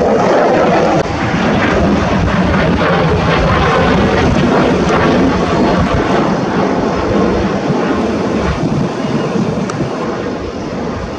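A fixed-wing aircraft's engine noise, loud and rushing, fading gradually as the aircraft moves away.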